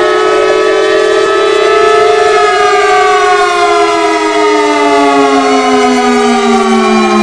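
Chrysler Victory civil defense siren, with compressed air forced through a rotary chopper and out its horns, sounding a loud wail of several tones. About two and a half seconds in, the pitch starts to fall and keeps gliding down.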